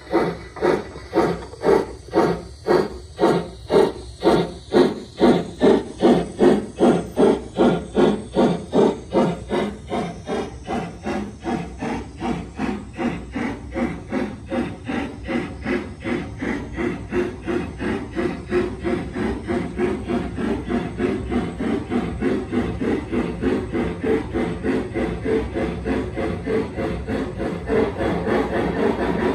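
LGB G-scale model steam locomotive chuffing in a steady rhythm, about two to three hissing chuffs a second, loudest over the first several seconds as it passes close by, then softer as it runs on.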